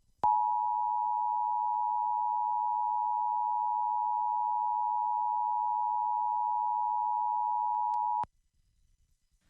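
Emergency Alert System two-tone attention signal: two steady tones sounding together for about eight seconds, starting and cutting off abruptly. It marks the alert of a Required Monthly Test, just before the spoken test message.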